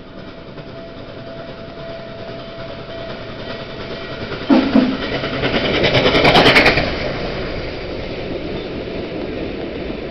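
Norfolk & Western 611, a J-class 4-8-4 steam locomotive, passing directly underneath: its sound builds, jumps sharply about halfway through, peaks with a short run of rapid exhaust beats, then settles into a steady rumble as the train rolls by.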